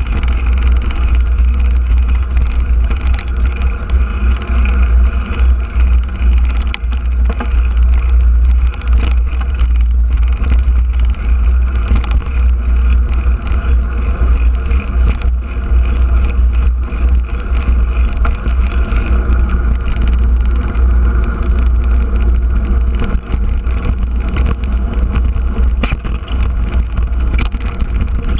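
Constant low wind rumble buffeting the microphone of a camera riding on a moving mountain bike, mixed with the rattle and sharp knocks of the bike over a rough dirt trail.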